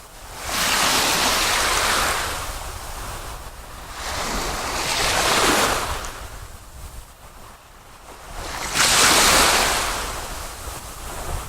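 Sea waves washing in and receding, three surges that each swell and fade over about two seconds, with a low rumble of wind underneath.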